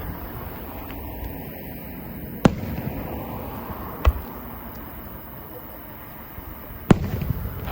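Aerial fireworks bursting: three loud booms, the first about two and a half seconds in, the next a second and a half later, and the last near the end.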